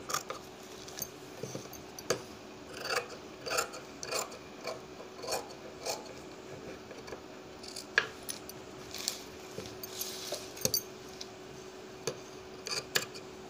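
Large tailoring scissors snipping through suit fabric backed with fusing paper: a series of short, irregularly spaced snips with the cloth rubbing and rustling between them.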